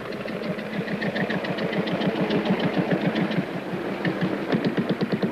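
Single-cylinder trials motorcycle engine running at low revs, in slow, even exhaust beats of about eight a second that grow louder over the first second or so.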